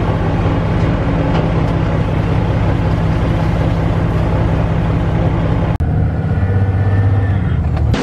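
Tractor engine running under load as its grain cart auger unloads corn into a semi trailer, a steady deep hum with grain rushing. A brief cut about six seconds in gives way to a lower, smoother engine hum for the last two seconds.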